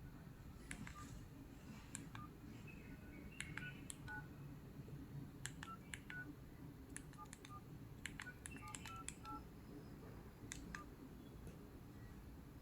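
Faint keypad tones and button clicks from a cordless SIM-card handset phone as a number is dialed: a string of short beeps, irregularly spaced, each with a key click.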